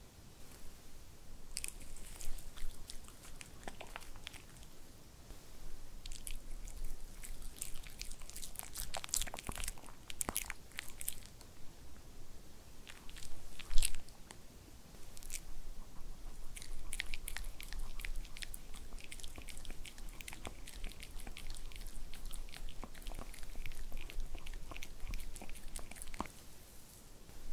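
A white Pomeranian chewing a soft carob-coated chicken-and-sweet-potato dog treat: a long run of small crisp mouth clicks and crunches, with one louder click about halfway through.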